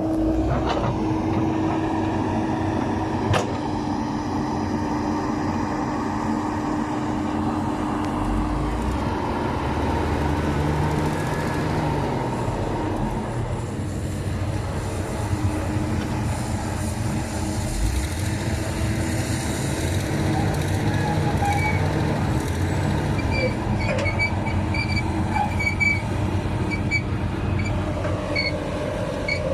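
Hyundai hydraulic excavator working, its diesel engine running steadily under load as it digs soil. There is a sharp click about three seconds in, and short high-pitched chirps near the end.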